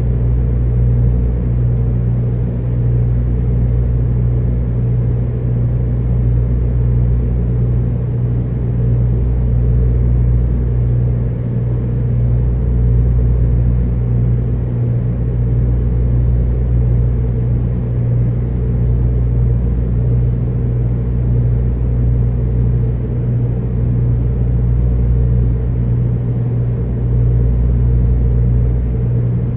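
Steady low machine hum with a deep rumble under it and a fainter steady tone above, running on without a break except for a few brief dips. The resident takes it for machine noise coming from a neighbouring apartment.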